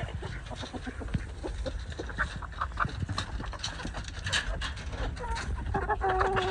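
Chickens clucking and calling in short bursts from a coop full of hens and roosters, over low rustling. A steady held tone comes in near the end.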